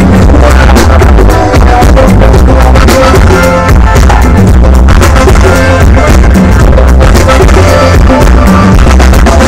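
Live highlife band music, very loud, with a heavy bass line and drums, dense and without a break.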